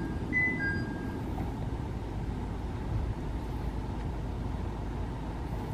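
Hakone Tozan Cable Car at the station platform: a two-note descending chime sounds once more, ending about a second in, then a steady low rumble.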